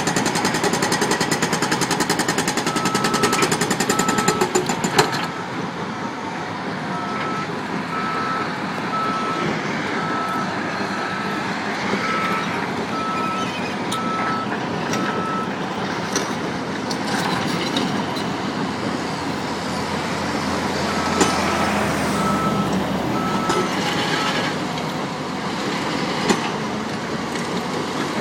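Caterpillar 320C excavator's hydraulic breaker hammer pounding in a fast, steady rattle of blows that stops suddenly about five seconds in. The excavator then runs on with a backup alarm beeping in a regular series, which stops and starts again later.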